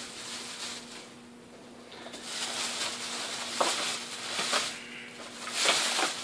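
Crinkling and rustling of a wrapped package being picked up and handled, in uneven spells with a few sharp clicks, over a faint steady hum.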